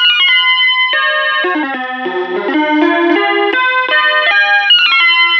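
Background instrumental music: a quick melody of short, changing notes over a steady accompaniment.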